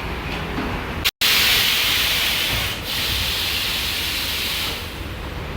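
Compressed air hissing steadily at a car tire's valve for about three and a half seconds. It starts after a brief cut about a second in and drops away shortly before the end. The old valve is the one found to be leaking.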